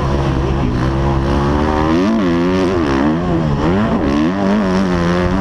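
Motocross dirt bike engine heard on board from the rider's helmet, running steadily at first, then revving up and down several times as the throttle is worked, and settling to a steady pitch near the end.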